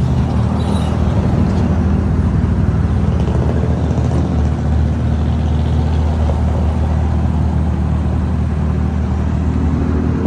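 Motor vehicle engine running steadily with a constant low hum.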